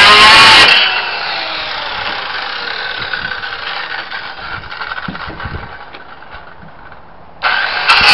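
Hand-held circular saw: a loud run cuts off under a second in, then the blade winds down with a slowly falling whine that fades away. Near the end the saw starts up again loud.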